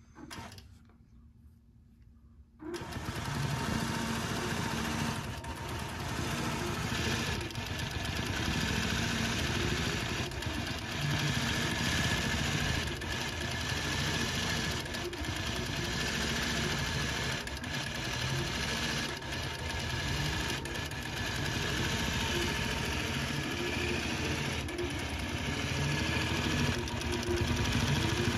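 Robot-guided longarm quilting machine stitching steadily, its needle and carriage drive running together, starting up about two and a half seconds in.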